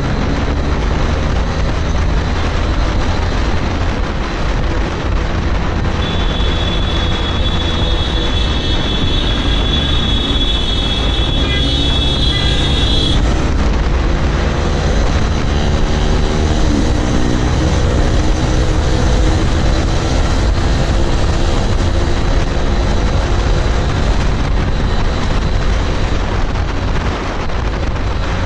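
Motorcycle fitted with an aftermarket exhaust running at road speed, its engine note rising and falling as it accelerates, under heavy wind rumble on the microphone. A thin high whine holds for several seconds in the middle.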